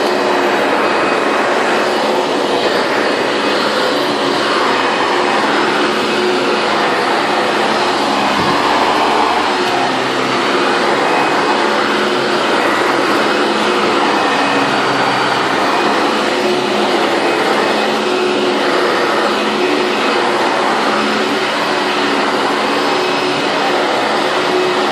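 Late-1990s Hoover Bagless twin-chamber upright vacuum cleaner running steadily as it is pushed over carpet. A steady motor hum with a few held tones under a loud airy rush that swells and fades with each push and pull.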